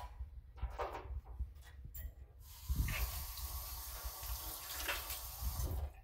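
A few light knocks of plastic fountain parts being handled, then a kitchen tap running into a stainless-steel sink as a steady hiss for about three and a half seconds, cut off just before the end.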